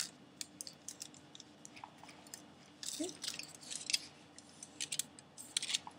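Aluminium foil crinkling and rustling under fingertips as it is rubbed around a coin to mould its shape, in short scattered crackles that are thickest about three to four seconds in.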